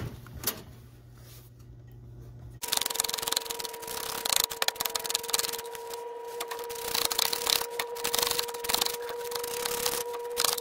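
Wrench working the 11 mm downpipe bolts on the turbo of a 7.3 Power Stroke: quick metallic clicking and scraping that starts suddenly about two and a half seconds in, over a steady mid-pitched tone.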